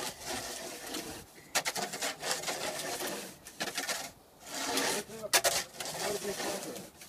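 Snow shovel scraping and prodding: several rough scraping bursts of a second or so each, with a few sharp clicks among them.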